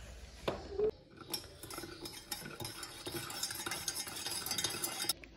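Black coffee being stirred with a stick in an enamel mug: a quick, dense run of clinks and scrapes against the mug's sides for about four seconds, stopping abruptly near the end. A single sharp knock comes about half a second in, before the stirring.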